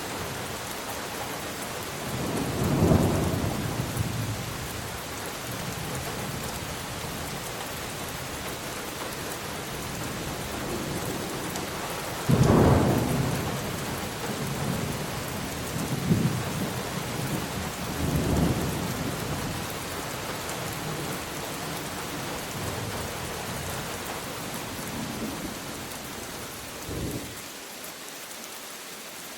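Steady heavy rain with thunder rolling over it several times. The loudest is a sudden sharp clap about twelve seconds in; near the end the rumbling stops and only the rain is left.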